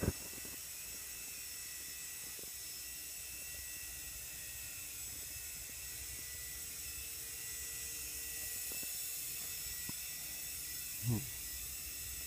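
Blade CX Scout micro RC helicopter hovering, its electric motors and rotors giving a steady high whine. About 11 seconds in, a brief louder sound drops sharply in pitch.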